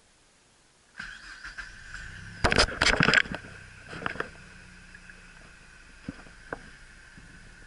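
Mazda car's engine being started with the key. A steady high whine comes on about a second in, the engine cranks and catches with a loud burst about two and a half seconds in, then settles to a steady idle at about 640 rpm.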